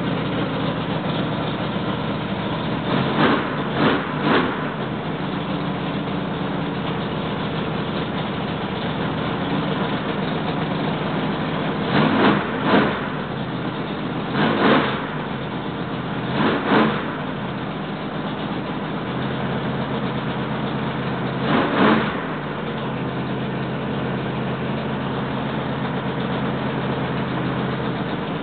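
Rebuilt L88 427 big-block Chevy V8 with a hydraulic roller cam, running through mufflers at a raised break-in idle on its first run. It gives several brief revs: three close together a few seconds in, a cluster around the middle and one more a few seconds later.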